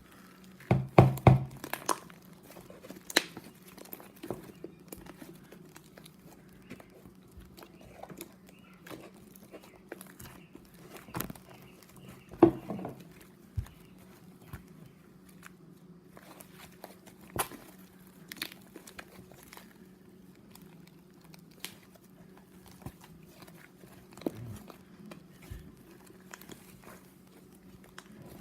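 Slime being handled and squished: scattered short crackles, pops and clicks, a few louder ones near the start and about halfway, over a faint steady low hum.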